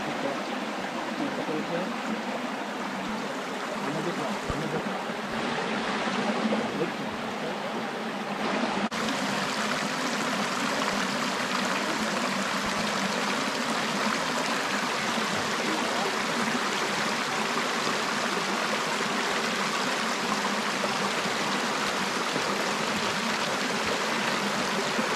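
Shallow rocky creek running over stones, a steady rush of water, a little louder from about nine seconds in.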